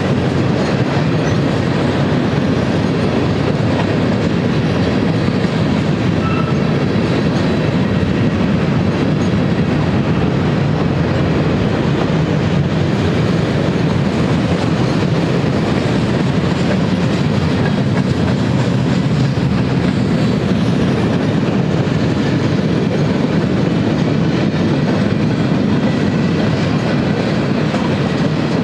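Manifest freight train rolling past, its cars (covered hoppers, then tank cars) making a steady rumble and rattle of steel wheels on the rails.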